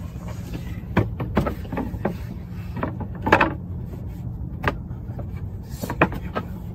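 Plywood tabletop being slotted onto an interlocking plywood base: several sharp wood-on-wood knocks, with a longer scrape about three seconds in as the pieces are worked together. A steady low hum runs underneath.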